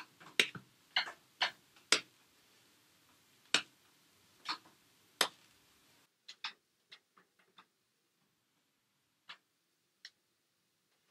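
A series of short, sharp, irregularly spaced clicks, about a dozen in the first half. After that they thin out into a few fainter clicks.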